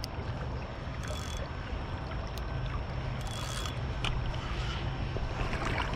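Steady rush of river water flowing, with a few brief rustles of a jacket sleeve brushing close to the microphone.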